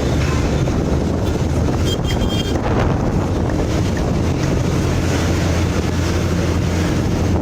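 A motor running steadily with a low drone, with wind rushing over the microphone.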